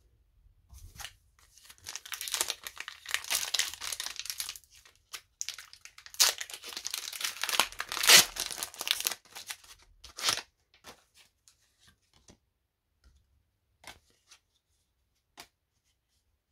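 Foil Pokémon booster pack wrapper crinkled and torn open by hand: two spells of crackling and tearing, the second louder. A few faint light ticks follow.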